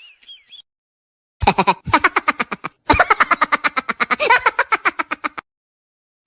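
Laughing sound effect: a fast, rapid-fire run of short pitched "ha-ha" pulses starting about a second and a half in, with a brief break near the middle, stopping about a second before the end. At the very start, the tail of a high warbling sound fades out.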